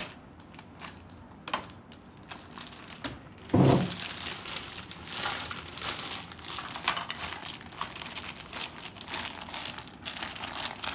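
Plastic toy packaging crinkling and rustling as it is handled and opened, with one louder low bump about three and a half seconds in; the rustling grows busier in the second half.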